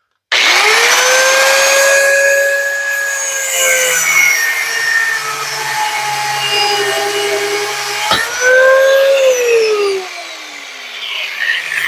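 Angle grinder starting with a sudden high whine and cutting into the old exhaust, its pitch sagging under load. About eight seconds in it revs back up, then winds down with a falling whine near the end.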